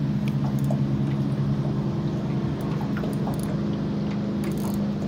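A small boat's motor running steadily with a low, even hum, with a few faint ticks over it.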